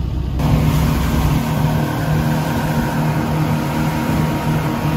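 A motorboat's engine running at speed, under the steady rush of its wake and wind. For the first half second there is only a lower engine hum.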